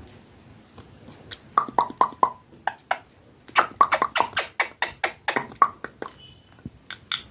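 Ringneck parrot making rapid runs of short clicks and pops, some with a brief squeaky tone, starting about a second and a half in and densest in the middle.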